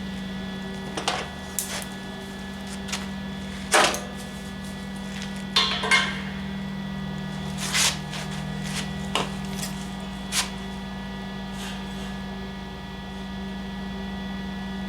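Sharp metal clanks and knocks, eight or so at irregular spacing, over a steady electrical hum, from steel parts and tools being handled at a stick-welding setup.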